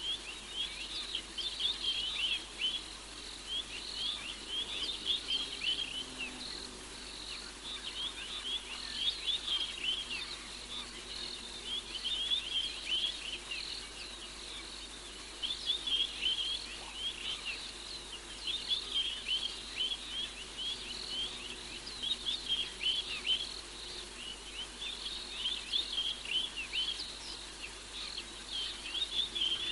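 Night-time bush chorus of many small animals calling: short high-pitched chirps overlapping in bouts every few seconds, over a steady hiss.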